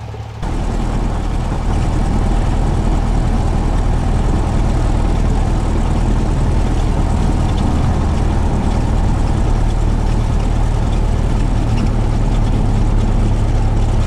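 Cessna 172's piston engine and propeller running steadily, heard loud inside the small cabin, with a deep steady hum. It gets abruptly louder about half a second in and a little more again soon after, then holds steady.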